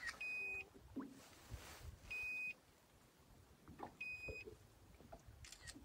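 An electronic beep sounding three times at an even pace, about every two seconds: a short, high, clean tone.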